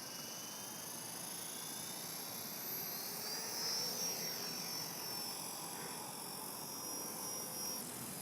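A radio-controlled model helicopter flying, with a high whine from its motor and rotor. The whine rises in pitch over the first few seconds, then holds steady.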